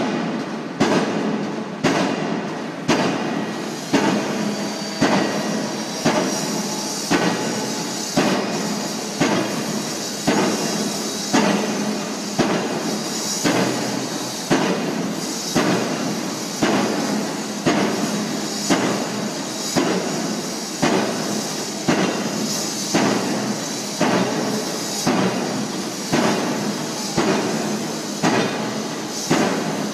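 Pile driver's hammer striking a pile about once a second in a steady, even rhythm, each blow a sharp bang, over the constant running of the rig's engine.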